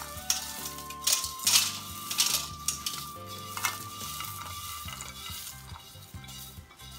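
Roasted poha flakes and peanuts being poured and pushed by hand from a plate into a kadai of hot tempering oil: a run of dry rustling and rattling as the flakes and nuts hit the pan, with a light sizzle, busiest in the first few seconds.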